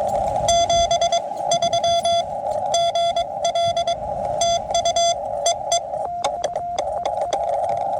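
Morse code (CW) from a QRP Labs QMX transceiver: a steady beep keyed on and off in dots and dashes over a band of receiver hiss, with sharp clicks and bursts of higher, buzzier beeps mixed in. Wind rumbles on the microphone in the first second or so.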